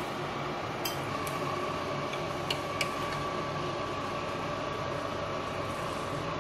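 A steady mechanical hum with a held tone, with a few light clicks and clinks of a steel strainer against a steel pot in the first three seconds as par-boiled rice is tipped from the strainer onto cooked mutton.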